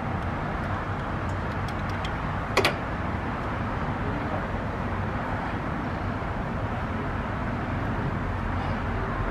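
Vacuum hoses handled in an engine bay: a few faint ticks and one sharp click about two and a half seconds in, over a steady low hum and hiss.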